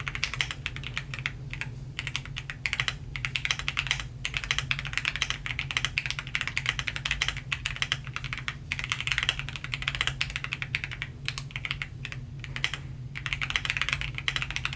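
Fast, continuous typing on a Royal Kludge R75 mechanical keyboard fitted with linear red switches: a dense patter of keystrokes, broken by a few short pauses.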